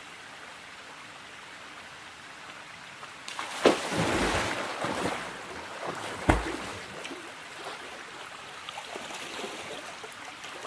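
Steady rush of waterfall and stream water. About three seconds in, loud splashing of someone moving in the water starts and lasts a couple of seconds, with two sharp thumps. The water's rush then goes on more quietly and unevenly.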